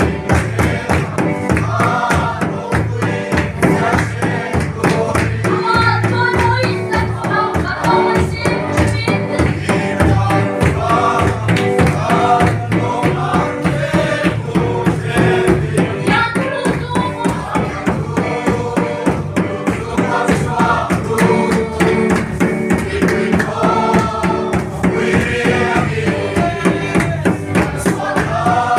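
A group of men and women singing a worship song together over a steady, driving beat.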